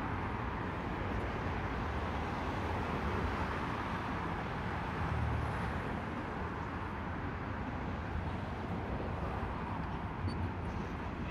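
Steady hum of car traffic on the Brooklyn Bridge roadway beneath the pedestrian walkway.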